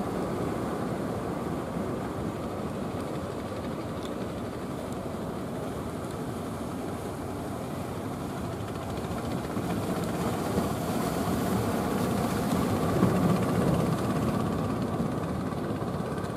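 Steady low rumble of a traditional wooden fishing boat's engine running, mixed with surf and wind, swelling a little louder about ten seconds in.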